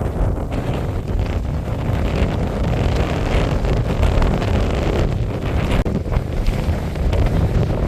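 Strong wind buffeting the microphone: a loud, continuous low rumble that rises and falls with the gusts.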